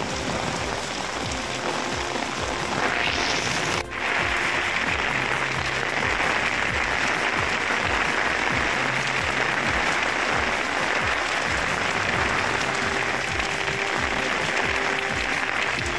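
Heavy downpour hissing steadily on a paved street, with a brief dropout about four seconds in.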